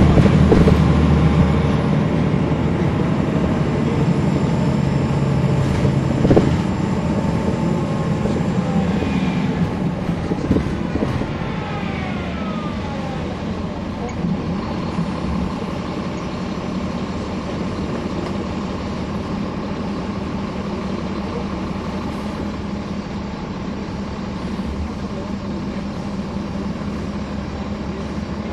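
A NABI transit bus's Caterpillar C13 ACERT diesel heard from the rear seat, with its radiator fans running. It pulls hard and loud at first, eases off after a knock about six seconds in, gives falling whines as the revs drop, then settles into a steady, lower drone.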